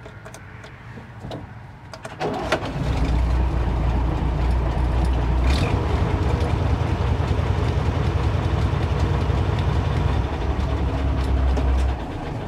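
The MAN KAT military truck's diesel engine is cranked by the starter about two seconds in, catches almost at once and runs at a steady idle. Its sound drops off near the end.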